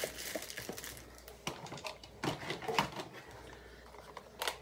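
Light clicks and clattering taps of small packaged makeup items being handled and set down, a handful of sharp taps spread through.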